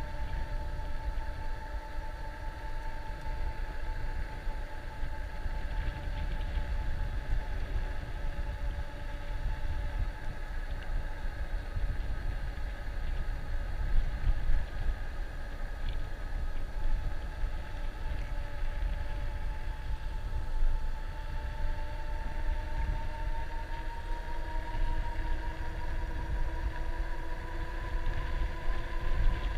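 Electric bike motor whining steadily while riding, its pitch rising slowly near the end as the speed picks up, over wind rumbling on the microphone.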